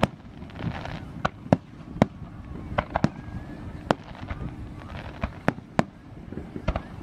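Aerial fireworks shells bursting: a string of about a dozen sharp bangs at irregular intervals, some close together in quick pairs and triples.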